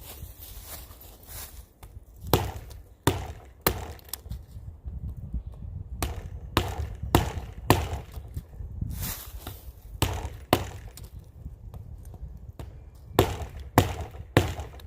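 Wooden baton knocking on the spine of a pocket knife to drive the blade into dead wood: sharp knocks in groups of two or three about half a second apart, about a dozen in all.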